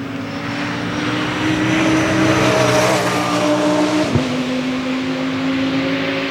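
Audi R8 LMS Ultra GT3 race car's V10 engine running at high revs, growing louder toward the middle and then easing slightly. A sharp crack and a brief dip in pitch come about four seconds in.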